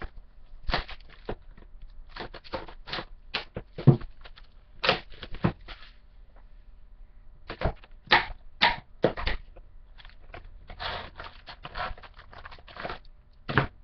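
Trading card packaging being torn open and handled: crackling and crinkling wrapper with sharp snaps, and a stretch of continuous tearing near the end.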